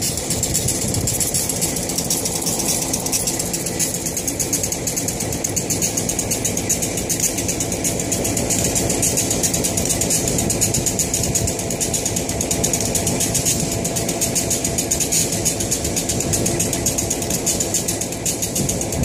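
Railway turntable rotating, its drive machinery running steadily with a fast, even rattle.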